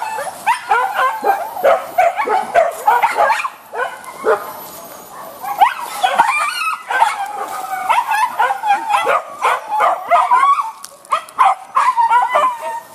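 Hunting dogs on leads yelping and barking excitedly in a rapid, almost unbroken run of high yelps, with a brief lull about four seconds in.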